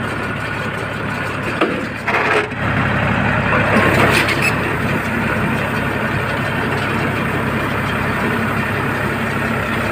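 Tractor engine running steadily while working a Redlands implement, with mechanical rattling over the engine drone. A sharp knock comes about a second and a half in, and the rattle grows louder for a couple of seconds after it.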